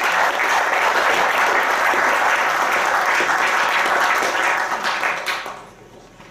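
Audience applauding, steady clapping that dies away about five seconds in.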